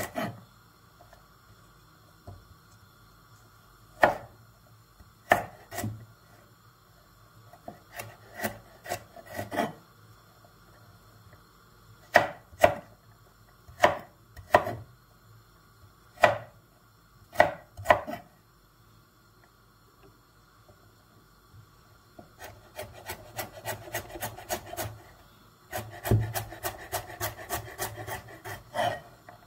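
Chef's knife chopping carrot on a wooden cutting board: single chops with pauses between them, then two fast runs of chops, several a second, near the end.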